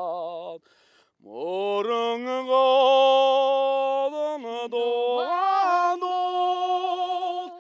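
A solo voice singing unaccompanied in long, drawn-out notes. After a short break about a second in, it swoops up into a long held note, then steps to new pitches near four and five seconds in.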